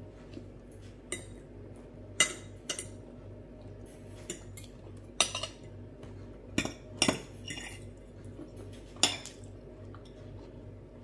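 Metal knife and fork clinking and scraping on a glass plate: about nine short, sharp clinks at irregular intervals, the loudest in the middle, over a steady low hum.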